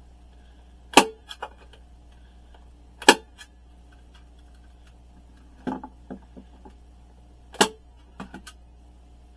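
Staple gun firing staples through grill cloth into a speaker cabinet: three sharp snaps about two seconds apart and a weaker one in between, each followed by a few small clicks.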